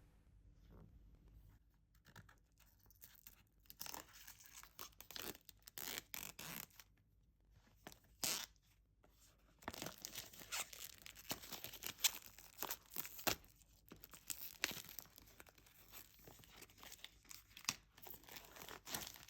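Plastic packaging on a product box being torn and crinkled by hand: irregular bursts of tearing and crackling, with a pause partway through.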